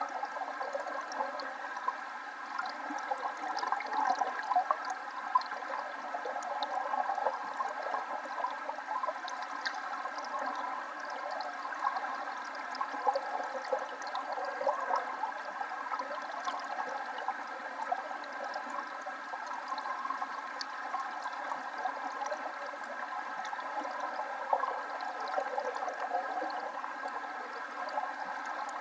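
Waterfall: a steady rush of falling water with no breaks.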